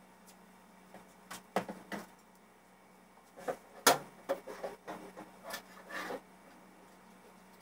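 Light knocks and clatter of small objects being handled and set down, in two short flurries, the sharpest knock about four seconds in, over a faint steady hum.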